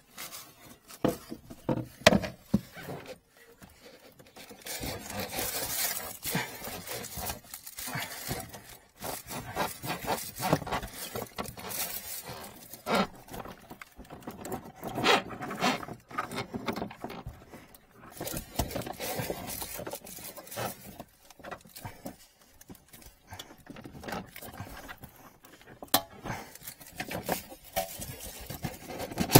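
Irregular rustling and knocking as plastic snack packets and other items are handled and shifted in a cramped under-sink cabinet, with the camera bumping about.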